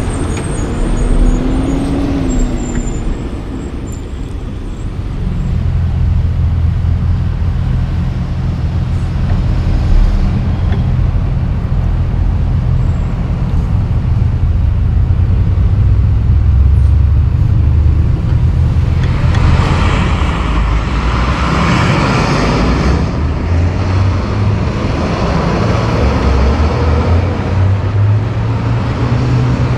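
Loaded tri-drive diesel logging trucks and road traffic: a steady low engine rumble, with a louder rushing noise lasting about four seconds around two-thirds of the way through.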